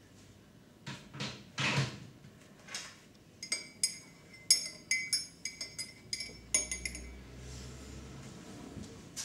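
Metal teaspoon stirring tea in a ceramic mug, clinking quickly and repeatedly against its sides for about three seconds, after a few duller knocks and handling noises on the worktop.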